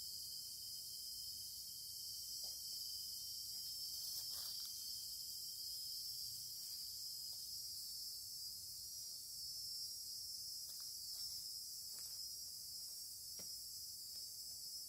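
Steady, high-pitched chorus of insects chirring in the garden, with a few faint ticks now and then.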